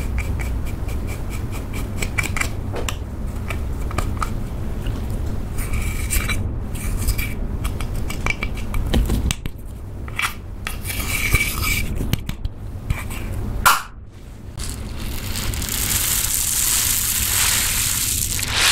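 A plastic spatula crushing and scraping pressed powder eyeshadow in a plastic compact, in many short scratchy strokes. A sharp click comes near the fourteen-second mark. In the last few seconds, polystyrene foam beads poured from a plastic bottle make a steady hissing rush.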